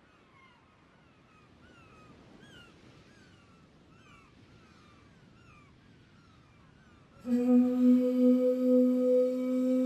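Faint high chirps over quiet ambience, then about seven seconds in a conch shell horn is blown: one loud, steady low note that holds without a break.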